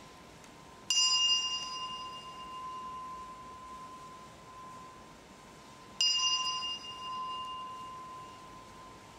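A bell struck twice, about five seconds apart. Each strike rings on for several seconds, its higher overtones dying away well before its lower tone.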